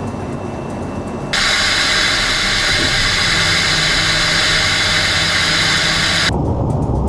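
Steady noise of jet aircraft in flight. About a second in it switches abruptly to a much louder, harsher hiss, and shortly before the end it drops back just as suddenly.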